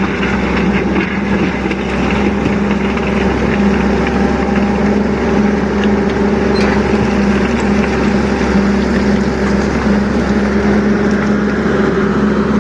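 Excavator's diesel engine running steadily, a constant hum with no change in speed.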